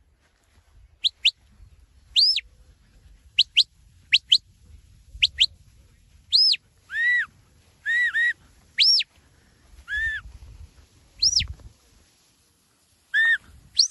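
Shepherd's whistle commands to a working sheepdog: a run of loud, pure whistle notes, some in quick rising pairs, some longer notes that rise and fall, and a few lower falling ones.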